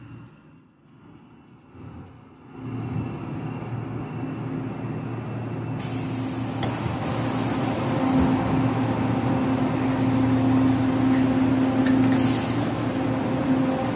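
Inside an LRT Line 2 train car: the running noise of the train, a rumble with a steady hum, that swells in after a quiet first couple of seconds and then holds steady.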